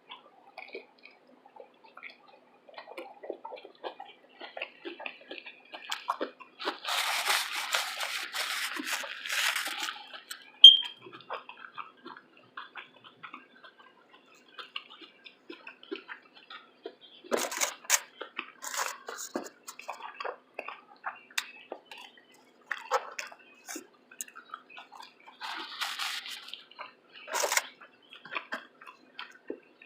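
Close mouth sounds of someone eating a shrimp taco: chewing and wet smacking clicks, with a few longer, louder crackles about seven seconds in and again near the end, and a sharp click around eleven seconds.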